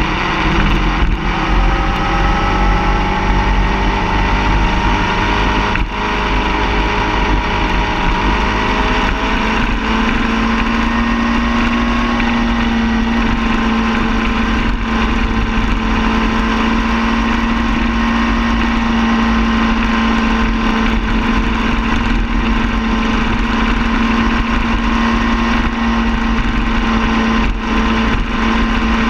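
Car engine running steadily, its pitch rising slowly over the first ten seconds or so and then holding level.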